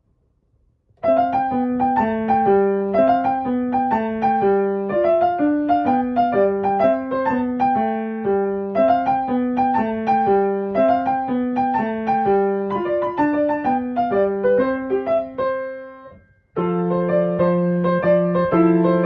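Background piano music, a melody of short notes, starting about a second in. It breaks off briefly near the end, then comes back with fuller held chords.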